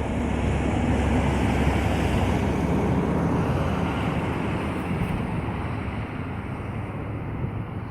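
Road traffic noise: a steady rumble that swells over the first couple of seconds and slowly fades, like a vehicle passing by.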